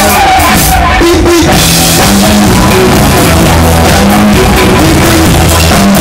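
Live blues-rock band playing loudly: a hollow-body electric guitar over a steady drum-kit beat and a low bass line, recorded on a cell phone.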